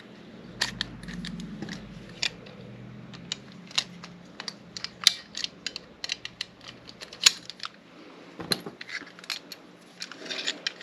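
Small metal lock parts and hand tools clicking and tapping as a rekeyed lock cylinder is put back together: irregular sharp clicks, a few of them louder.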